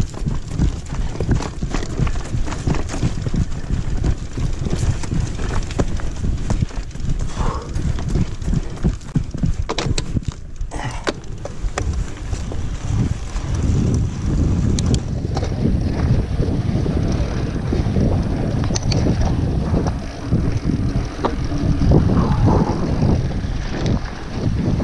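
Mountain bike moving along a sandy forest trail, with wind buffeting the microphone and many small rattles and clicks from the bike. The low rumble grows heavier about halfway through.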